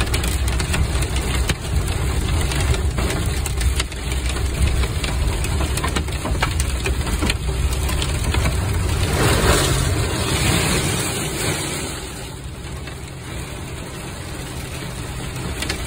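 Hail pelting the roof and windshield of a moving vehicle: a dense clatter of small impacts over the low rumble of engine and road. The hail eases a little about twelve seconds in.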